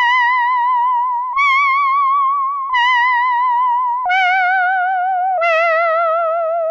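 Moog Werkstatt-01 analog synthesizer playing a slow monophonic line of five held notes, each about a second and a half long, with a steady vibrato. The upper tones fade within each note, and the last two notes step lower.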